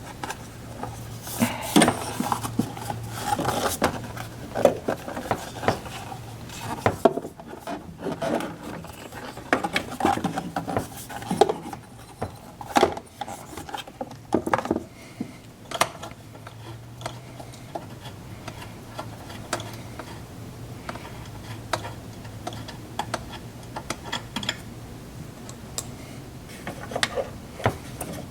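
Irregular clinks, clicks and knocks of small metal parts and hand tools being handled and fitted, with some rubbing and a faint steady hum underneath.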